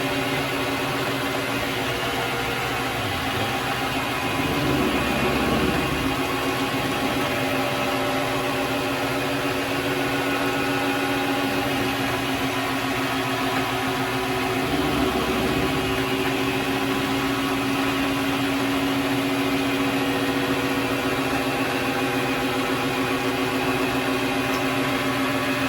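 Vevor MX400 mini lathe running steadily with an even motor whine. It is switched off at the very end and the whine starts to wind down.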